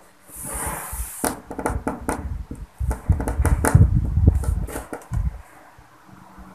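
A run of light knocks and clicks with rustling and dull low thumps close to the microphone, like handling noise. A short hiss comes first, and the sounds die down about five seconds in.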